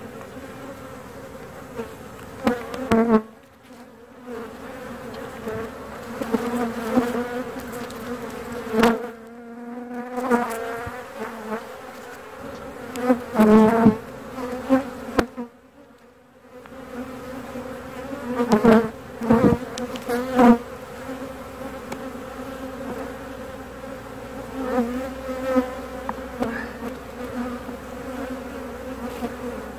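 Honeybee colony buzzing steadily over an open hive, with a few louder swells as bees fly close. Several sharp knocks and scrapes come from the wooden frames being worked with a hive tool.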